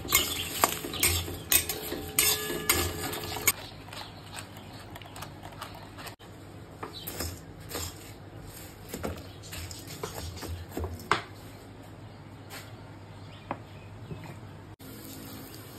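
Metal spatula scraping and clattering against a steel pan as whole coriander seeds, dried red chillies and peppercorns are stirred and dry-roasted over a gas flame. The scraping and seed rattle is dense for the first few seconds, then thins to occasional scrapes and clicks, and dies away after about eleven seconds.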